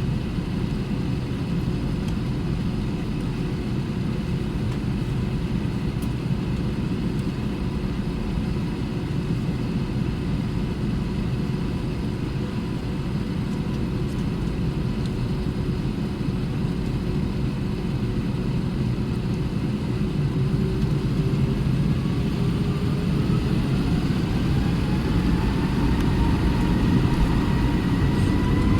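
Airbus A320 cabin noise with the turbofan engines running steadily at low power, a low rumble with a steady hum. About twenty seconds in, the engines begin to spool up for takeoff: a whine rises in pitch and the noise grows louder toward the end.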